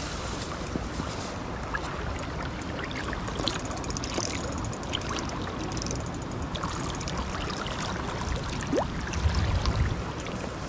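Steady rush of a swollen, fast-flowing river, with scattered faint clicks over it.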